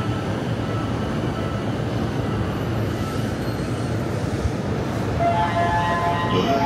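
JR commuter electric train running at the station platform, a steady rumble of wheels and motors. About five seconds in, a chiming electronic tune of several notes starts over it.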